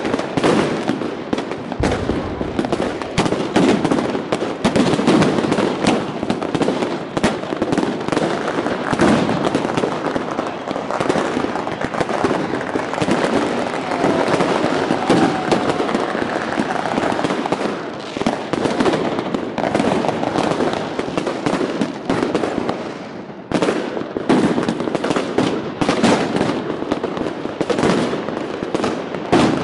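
Many consumer fireworks and firecrackers going off at close range: a near-continuous rapid crackle of bangs and pops. It thins out briefly about three-quarters of the way through, then picks up again.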